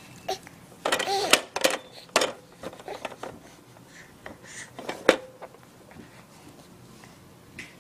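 A young baby gives a short voiced squeal about a second in, among a string of short sharp clicks and knocks, the loudest about a second, two seconds and five seconds in.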